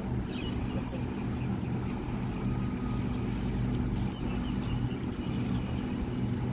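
Steady low hum of a stainless-steel double-deck electric train standing at a platform, its roof air-conditioning and auxiliary equipment running.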